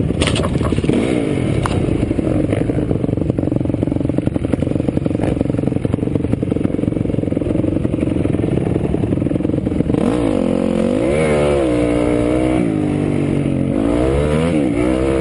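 Honda dirt bike engine running hard under load, heard up close from a camera mounted on the bike, with a few sharp knocks in the first seconds. From about ten seconds in the engine revs up and drops back several times as the rider accelerates through the gears.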